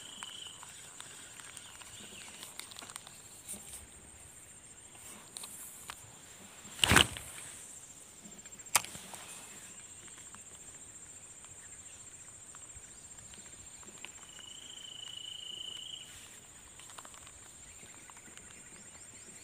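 A steady high-pitched insect drone from the swamp. About seven seconds in there is a single loud thump, and near nine seconds a sharp click. Around fifteen seconds a brief buzzing tone rises over the drone.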